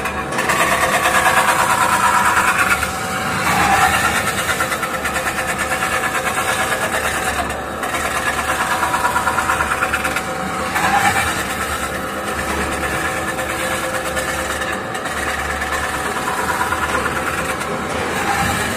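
CNC metal spinning machine running as it spins a metal pot blank on the mandrel against the forming roller: a steady mechanical whir with a fast pulsing hum, shifting in tone a few times.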